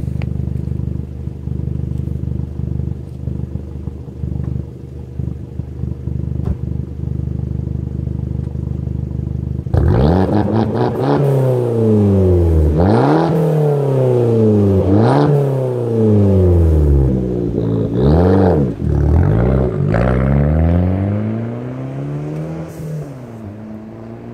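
Fiat 500 Turbo's 1.4-litre turbocharged four-cylinder, with a Madness aftermarket exhaust, idling steadily. About ten seconds in it pulls away hard, the revs climbing and dropping back at each of several gear changes, with a short hiss at the shifts from the Forge blow-off valve. It fades as the car drives off near the end.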